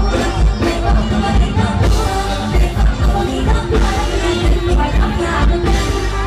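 Live Isan mor lam band music amplified through a PA: a woman sings the melody into a microphone over a loud, steady bass-drum beat.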